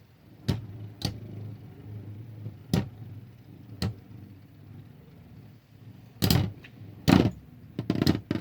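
Two Beyblade spinning tops whirring in a plastic stadium, clashing with sharp clicks a second or so apart, then a run of louder knocks from about six seconds in.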